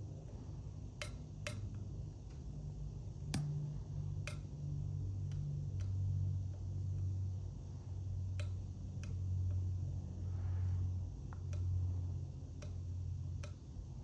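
Small sharp clicks at irregular intervals, a dozen or so, from a lock pick working the thin wafers of an Illinois Duo wafer padlock, over a steady low hum.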